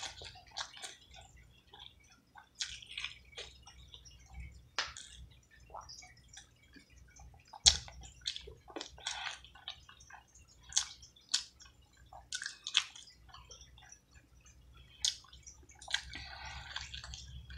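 Close-up wet eating sounds: irregular lip smacks, clicks and squelches of a mouth chewing and sucking saucy chicken off the bone.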